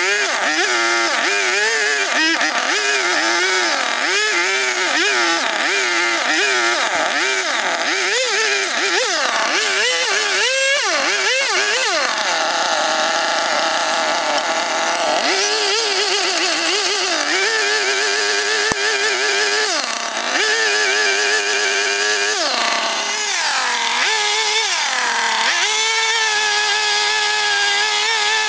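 Two-stroke chainsaw cutting into a log. It revs up and down quickly for the first half, then runs steadier at high revs while cutting, with the throttle dropping back briefly a few times near the end.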